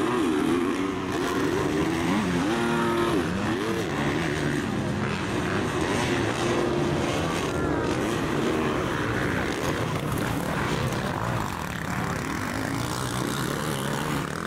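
Several motocross bikes racing on a dirt track, their engines revving up and down in overlapping rising and falling pitches as riders accelerate and shift.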